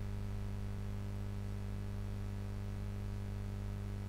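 Steady low electrical hum with a faint hiss underneath, unchanging throughout: room tone with no other sound.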